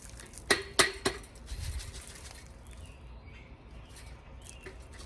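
A bird feeder knocked three times in quick succession, about half a second apart, to shake old seed out of its bottom.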